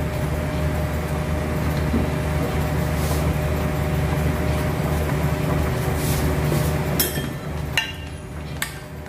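Steady low rumble of gas hob burners under a pan of simmering cream sauce. Near the end come a few sharp clinks of a spoon against the stainless pan as the sauce is stirred.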